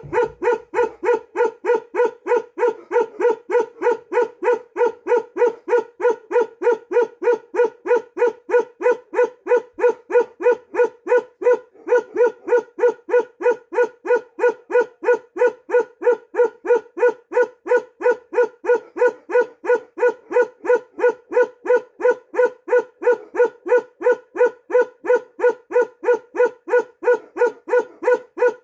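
Large tan dog barking in a steady, evenly spaced run of short barks, a few a second, with one brief break a little before halfway.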